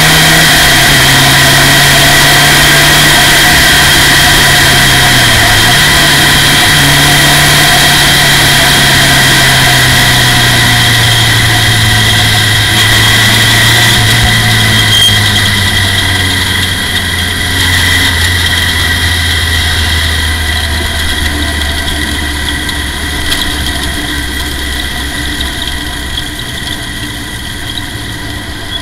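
Formula Ford race car's four-cylinder engine running, heard from the cockpit. Its pitch falls in steps and then steadily, and it grows quieter in the second half as the revs drop toward idle.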